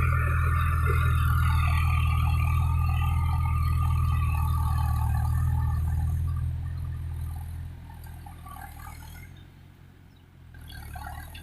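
Mahindra 415 DI tractor's diesel engine running steadily while ploughing, then fading away from about six seconds in until it is faint near the end.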